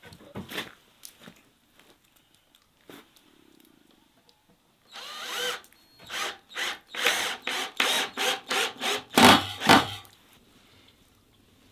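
Cordless drill driving a screw into a wooden board. About five seconds in, its motor spins up with a rising whine, then runs in a quick string of short trigger bursts, about three a second, the last ones loudest. A few light knocks at the start.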